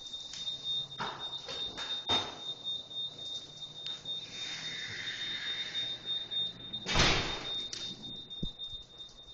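A steady high-pitched electronic tone sounds throughout, with a few knocks and a louder thump about seven seconds in.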